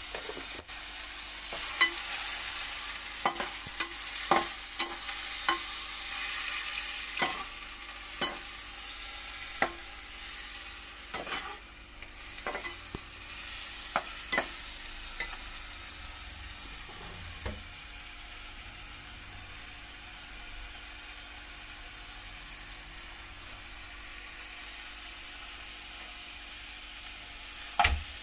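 Boneless chicken pieces sizzling in hot oil in a steel pan. A perforated steel ladle clinks and scrapes against the pan as it stirs, about once a second at first and only now and then later, with two louder knocks near the end.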